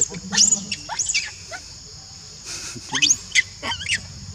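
Young macaque giving a string of short, shrill squeals that sweep quickly up and down in pitch, in two clusters: at the start and again about three seconds in.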